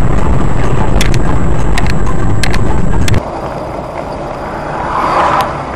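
Car driving noise picked up by a dashcam: a loud, steady low rumble with several sharp clicks. About three seconds in it cuts abruptly to quieter road noise.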